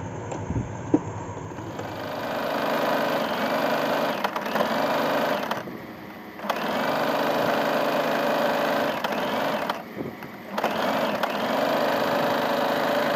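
Electric domestic sewing machine stitching through fabric, starting about two seconds in and running steadily in three stretches, with two short stops about six and ten seconds in.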